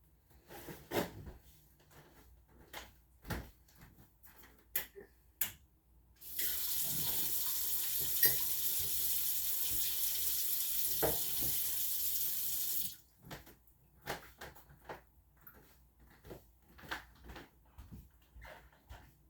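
Kitchen tap running into a sink for about six and a half seconds, starting and stopping abruptly. Scattered clicks and knocks of kitchen handling come before and after.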